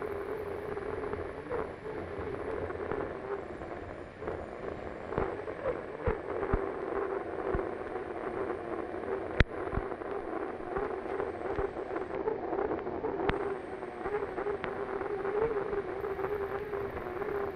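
Unlimited hydroplane's turbine engine running at race speed, heard onboard: a steady high whine over a wavering drone, with rushing wind noise and scattered sharp knocks, one louder than the rest about halfway through.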